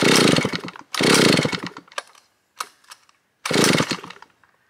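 Vintage 1970s Stihl S10 two-stroke chainsaw being pull-started with the choke off, three pulls, each giving a short loud burst from the engine that dies away. It does not keep running, which the owner puts down to the low-speed jet set too lean.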